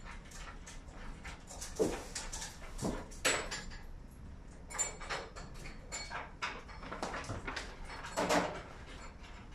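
Packing material being handled: a clear plastic sheet rustling, with scattered short knocks and scrapes. The loudest rustle comes near the end.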